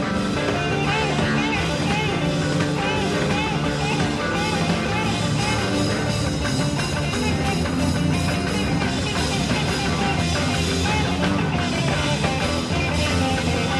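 Psychedelic rock music, an instrumental passage with guitar lines that bend up and down in pitch over a full, steady band.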